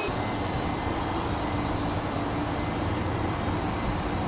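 Steady low outdoor rumble and hiss, with a faint steady hum underneath.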